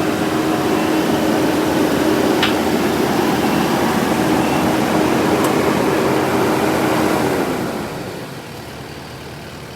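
A large vehicle engine running steadily and loudly, then dropping away sharply about eight seconds in.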